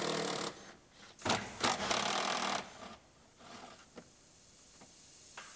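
Cordless power driver running in two short bursts, the second with a brief break, as it unscrews a seatbelt anchor bolt from the pillar.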